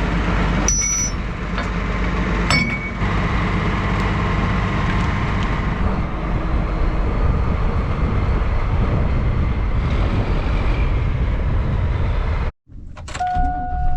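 Strong gusting wind buffeting the microphone over a running vehicle engine, with two sharp metal clinks about one and three seconds in as farm equipment is unhooked.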